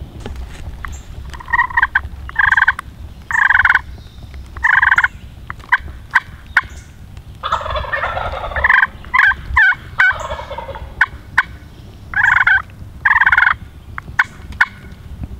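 Wild turkeys calling: a run of short, evenly spaced yelps, a gobble about eight seconds in with quick sharp notes right after it, then more yelps near the end.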